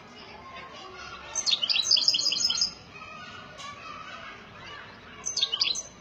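Caged songbird singing: a fast twittering phrase of high notes lasting about a second and a half, then a shorter burst near the end.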